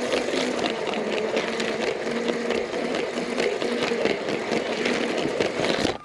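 A LEGO train's small electric motor whirring with a rapid, dense clatter, as of plastic wheels and gears rattling on the track. The sound stops abruptly near the end.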